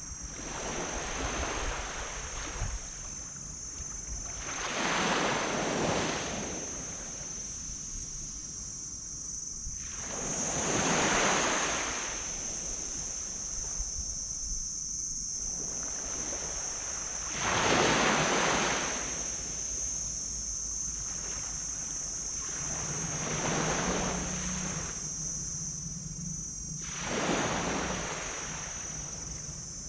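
Small waves breaking and washing up a black sand beach, four larger surges swelling and fading about every six or seven seconds.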